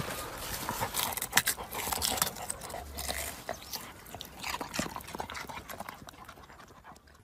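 A dog gnawing and biting at a white radish still rooted in the soil: irregular crunching and scraping clicks that grow fainter toward the end.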